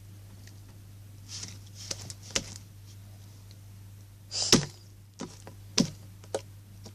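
Sticky slime being pulled and squeezed in the hands: a scattering of short clicks and brief squishes, the loudest about halfway through, over a steady low electrical hum.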